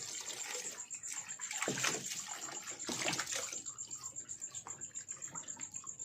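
Water sloshing and splashing in irregular surges as wet laundry is handled in a tub of rinse water and lifted out for spin-drying.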